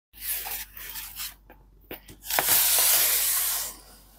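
Hands handling the packaging of a book being unboxed: rubbing and scraping, a few sharp clicks, then a louder steady rasp lasting over a second, starting about two and a half seconds in.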